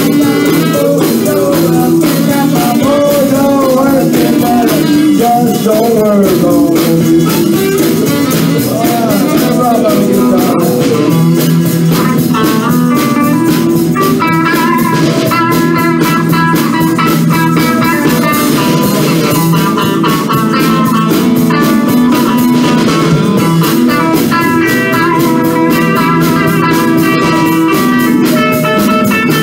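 Live blues band playing an instrumental break, guitars leading over the rhythm section.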